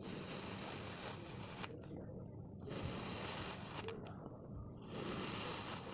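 Kinetic sand being cut with a comb: grainy scraping and squishing as the teeth slice through the packed sand, in three long strokes with short pauses between them.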